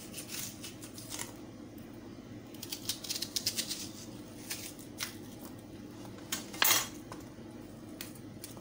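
Slices of red onion being pushed apart into rings by hand on a wooden cutting board: light clicks and crackles of the onion layers and knife, with a run of quick taps about three seconds in and a sharper knock a little before seven seconds.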